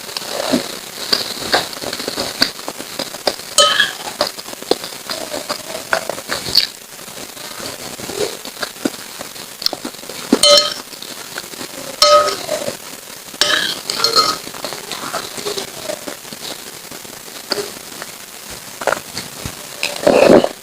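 Close-up eating sounds of lontong sayur: a spoon clinking and scraping against the dish, with several short ringing clinks and many small wet clicks between them.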